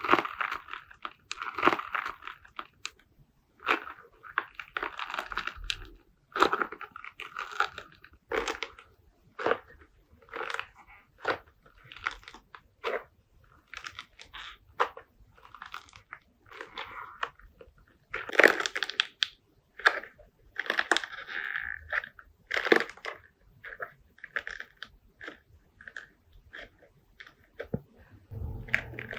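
Slime being handled and pressed by hand, making a run of irregular short crackling, popping noises, now spaced apart, now in quick clusters.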